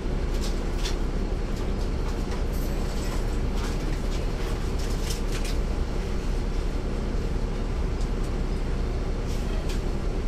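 Inside a 2009 NABI 40-SFW transit bus, heard from the rear: the Caterpillar C13 diesel engine running steadily with road noise, and a few sharp rattles and clicks from the body.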